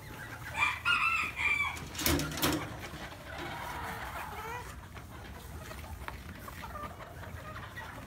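A rooster crows once, a short high-pitched crow, then two sharp knocks, and chickens cluck softly through the rest.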